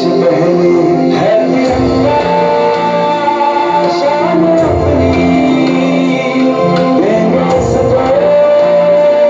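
Hindi patriotic song playing: a sung melody with long held notes over guitar and instrumental backing.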